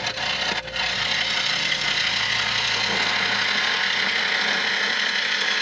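Bowl gouge cutting into a wooden bowl blank spinning on a wood lathe: a steady, loud hiss of the cut, broken briefly under a second in. It is a deep cut forming the tenon for the chuck.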